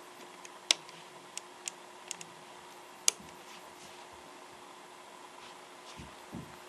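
Sharp clicks as the push buttons on the front panel of a 1984 Panasonic NV-810EG-type VHS video recorder are pressed, about six in the first three seconds, two of them much louder than the rest, over a faint steady hum. Soft low thumps near the end as the remote control is handled.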